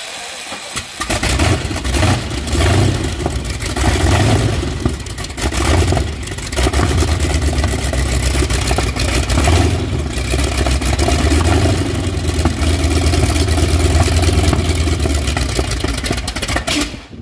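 Continental C1 nine-cylinder radial engine from an M4 Sherman tank, turning over for about a second and then catching, running unevenly with surges and dips at first, then more steadily, before cutting off suddenly near the end. It is the engine's first successful run after its supercharger bearing and impeller were replaced.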